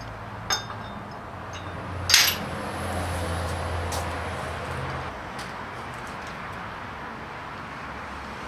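Metal engine parts clinking and knocking during engine assembly: a short ringing clink about half a second in, then a louder sharp metal knock about two seconds in, followed by a few seconds of handling noise.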